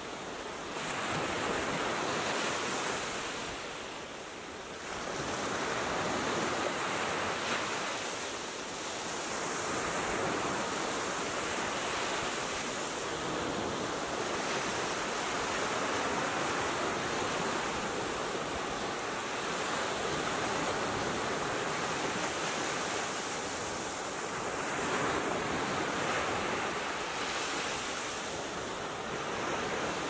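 Small sea waves breaking and washing up a sandy beach: a continuous rush of surf that swells and eases every few seconds.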